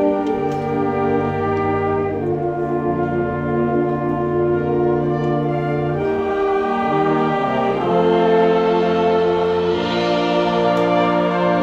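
Concert band with brass playing a slow passage of long held chords that change every two to four seconds, swelling a little about eight seconds in.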